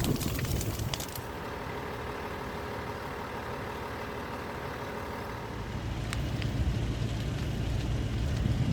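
A vehicle engine running with a steady low rumble that grows louder toward the end. Sharp crackling clicks sound during the first second.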